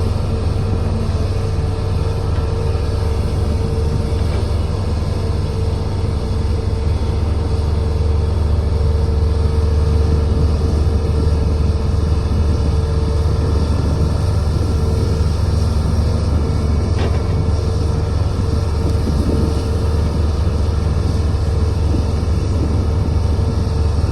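Heavy diesel machinery running steadily, a deep engine rumble at an even level.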